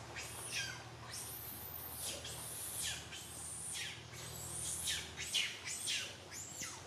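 Baby macaque calling: a rapid series of shrill, high-pitched squeals, each sliding down in pitch, a few every second.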